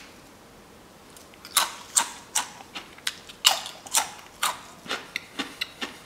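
Fully cooled, crisp homemade potato chips cracking and crunching: a string of sharp snaps begins about a second and a half in, the sign that the chips are extremely crispy.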